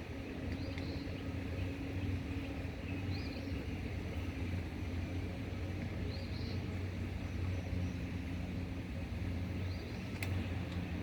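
A steady low mechanical hum with a bird's short chirp about every three seconds, and a single sharp click near the end.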